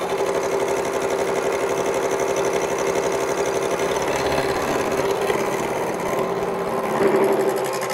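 Steinel SH4 horizontal milling machine face-milling a steel plate: the spinning cutter head with indexable carbide inserts cuts steadily, with a rapid even pulse over a steady hum. The inserts are no longer sharp.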